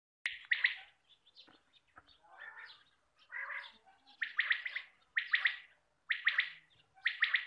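Quail (batair) calling: a repeated phrase of three or four quick, clipped notes, about once a second, with softer calls in between.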